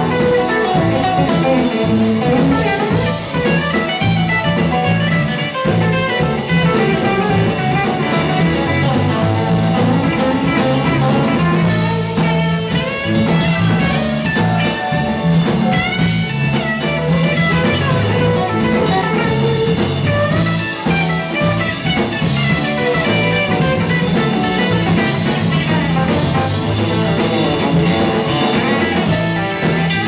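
Live band playing a blues-rock groove, with electric guitar lines over a drum kit. Guitar string bends are heard around the middle.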